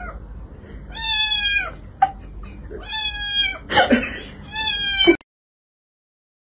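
A cat meowing loudly three times, each meow drawn out and steady in pitch for about half a second, with a shorter cry between the second and third.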